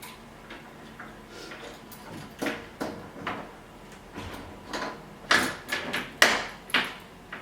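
A door knocking and rattling as someone repeatedly pulls and pries at it without getting it open. There is a string of sharp knocks and clatters, getting louder about five seconds in.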